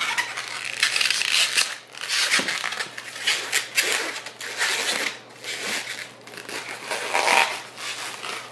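Latex modelling balloons being twisted and rubbed between the hands, making irregular rubbing and squeaking noises one after another.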